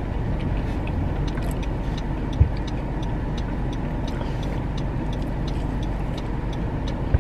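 A car heard from inside its cabin, with a steady low hum and a light, even ticking about two to three times a second. A single low thump comes about two and a half seconds in.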